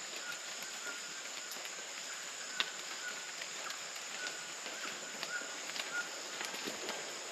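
Distant toucan calling, a steady series of short, repeated notes, over the continuous drone of rainforest insects. A single sharp click about two and a half seconds in.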